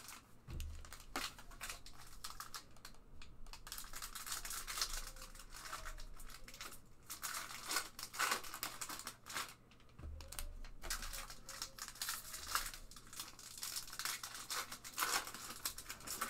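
Foil trading card pack wrappers being torn open and crinkled, with the cards shuffled in the hands, in irregular crackly bursts. Two soft low thumps come about half a second and ten seconds in.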